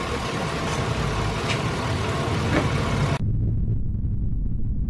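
Steady motor vehicle engine noise with a few faint ticks, which cuts off abruptly about three seconds in and leaves only a low rumble.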